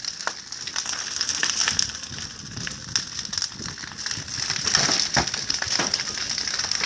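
Large bonfire of scrap boards and debris crackling, with irregular sharp pops over a steady hiss.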